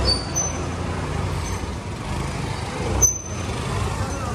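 Street traffic of motorbikes and scooters: a steady low engine rumble, with a brief loud bump about three seconds in.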